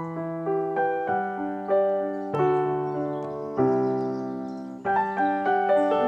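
Background music on piano: slow, gentle chords with single notes struck over them, each new chord sounding about once a second and ringing out as it fades.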